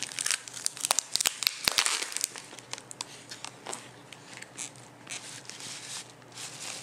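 Crinkling, crackling and tearing of a tape-wrapped plastic shipping package being pried open by hand. The crackles come thick and fast in the first couple of seconds, then thin out to scattered rustles.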